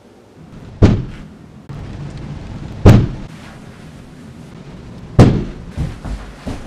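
Three loud, deep bangs about two seconds apart, each ringing out briefly, followed by a few softer thumps near the end.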